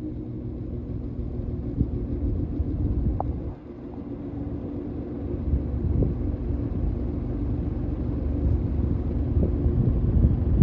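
Vintage General Electric box fan running: a steady motor hum over a low rumble of moving air buffeting the microphone, dipping briefly about three and a half seconds in.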